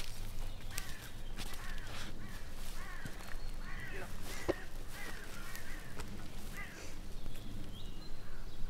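Crow cawing over and over, about two short harsh calls a second, from about a second in until near the end, with a few sharp clicks underneath.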